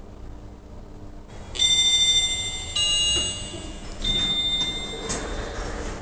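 Elevator arrival chime: three ringing electronic tones about a second apart, the first the loudest, followed near the end by the landing doors sliding open.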